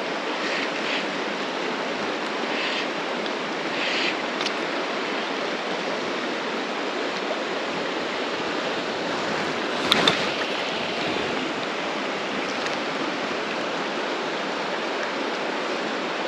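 A shallow river running steadily over a stony bed, a constant rushing of water, with one short knock about ten seconds in.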